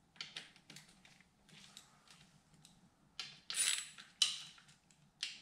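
Metal hand tool clicking and clinking against the clutch-cover screws of a Ducati 400SS engine as they are cracked loose, with a few sharper clinks past the middle and one near the end.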